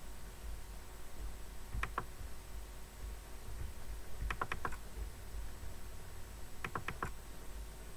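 Computer mouse button clicks in quick clusters, double-clicks opening folders: a pair about two seconds in, then two tighter runs of clicks near the middle and about seven seconds in, over a faint steady hum.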